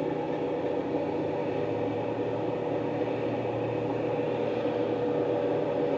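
Steady engine hum at an even pitch, with no change in speed.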